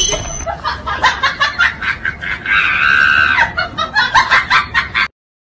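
Loud laughter in quick pulses, with a high drawn-out cry in the middle, cutting off suddenly near the end.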